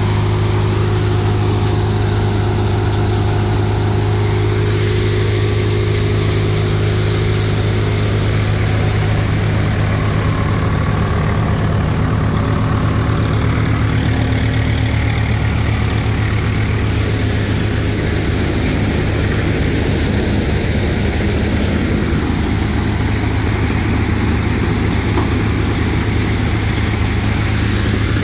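Tractor engine running steadily, driving a tractor-mounted thresher; an even, unbroken drone with a strong low hum.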